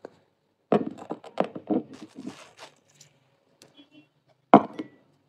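A woman's soft, low murmuring with small rustles close to the phone's microphone, then a single sharp tap about four and a half seconds in.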